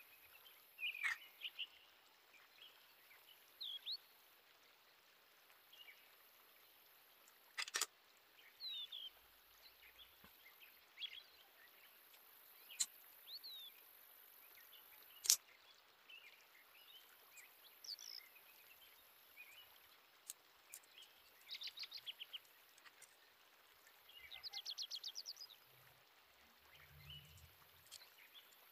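Small birds chirping faintly and intermittently, with short sweeping notes and two rapid trills in the last third, broken by a few sharp clicks.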